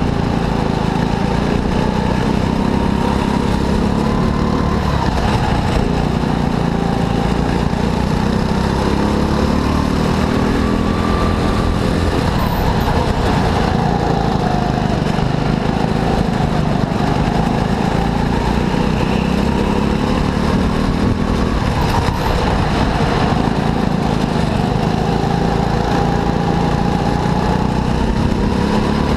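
Go-kart engine running under load, its pitch repeatedly rising and falling as it accelerates and lifts off.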